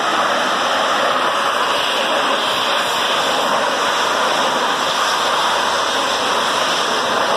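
Steady rushing noise of a large refinery fire being doused by high-pressure water jets from fire monitors, with no breaks or separate bangs.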